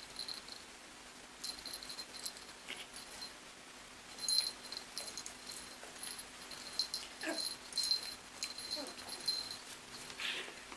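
Puppies play-wrestling, with a few brief falling whines or yips among rapid light clicking and scuffling of paws, claws and collar tags.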